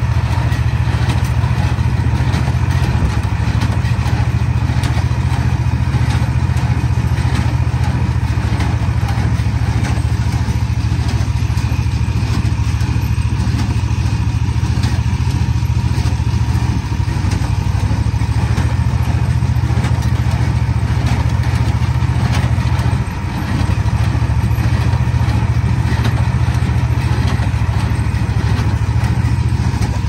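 Tractor engine running steadily as it pulls a working New Holland small square baler, with the engine's low, even drone the loudest sound. The sound briefly dips about three quarters of the way through.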